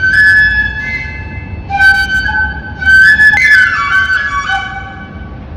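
A flute being played: a slow phrase of held notes with a quick falling run a little past the middle, the playing fading out near the end.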